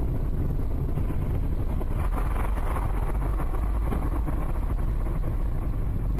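Steady low rumble of a car driving at speed, engine and tyre noise heard from inside the cabin through a dashcam microphone.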